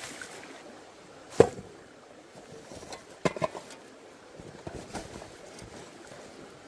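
A single sharp knock a little over a second in, then a quick cluster of knocks and clicks about three seconds in, over a faint steady hiss: the handling noises of camp cooking gear.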